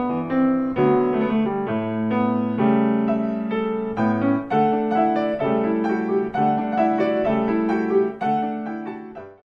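Piano music accompanying a silent film, a repeated low note under a running melody, dying away near the end and then stopping.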